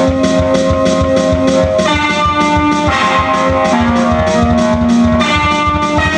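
Instrumental music played on a keyboard: held chords that change every second or so over a steady, quick beat.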